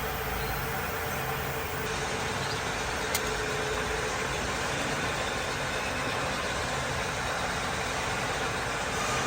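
A car engine running steadily, with a single sharp click about three seconds in.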